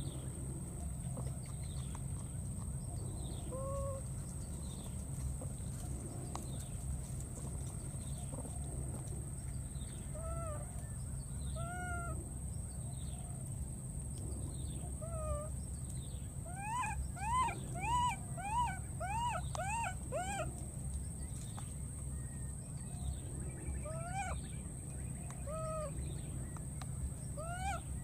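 Baby macaque calling: short, high-pitched cries that rise and fall, spaced out every few seconds, with a quick run of about eight cries a little past halfway. These are the calls of an infant left on its own.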